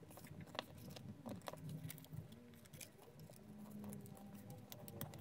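Faint rustling and small ticks of a sheet of paper being folded by hand, an edge brought in to the centre line and the fold pressed flat with the fingers.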